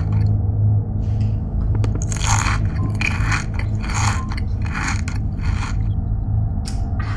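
A run of loud crunching, chewing-like sounds, about six crunches a little under a second apart, over a steady low hum, with one sharp click near the end.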